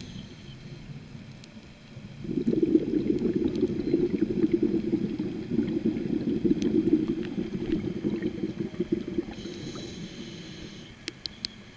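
Scuba diver breathing through a regulator underwater: a long bubbling exhale from about two seconds in until about nine seconds, then a hissing inhale near the end, followed by a few sharp clicks.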